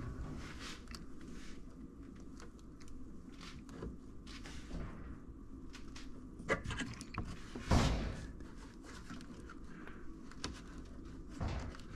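A pop-clip removal tool prying plastic push-pin trim clips loose: scattered light clicks and scrapes, with a louder knock about eight seconds in.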